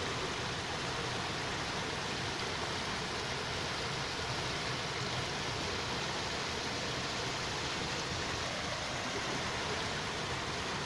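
Steady, even hiss with nothing standing out of it and no change in level.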